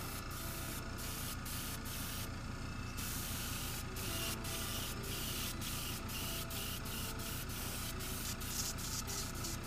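Airbrush spraying paint in a steady hiss, interrupted by short breaks as the trigger is let off and pressed again every half second or so, over a steady low hum.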